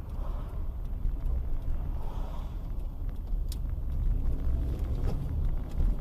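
A car driving along, with a steady low rumble of engine and road noise heard from inside the cabin.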